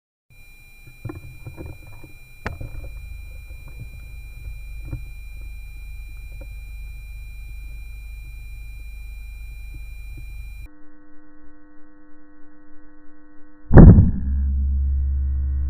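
Low rumble with faint handling clicks and a steady high whine, changing about 11 seconds in to a steady electronic drone of several held tones. About 14 seconds in comes a single sharp, very loud report, the air rifle's shot, followed by a louder low hum.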